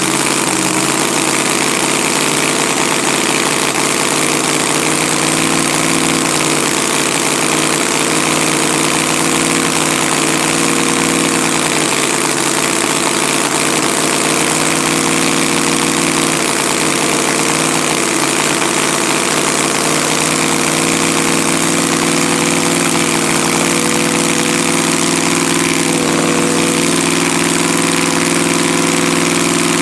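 An engine idling steadily, its pitch wavering slightly and creeping up a little near the end.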